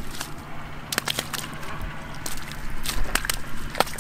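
Scattered wet slaps and knocks, about seven in four seconds, as live catfish flop in shallow mud and are dropped into a plastic tub by hand. A low steady hum runs underneath.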